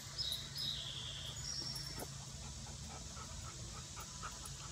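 A dog rummaging through brush and cut tree limbs: faint rustling and scattered twig crackles. A few short, high chirps sound in the first two seconds.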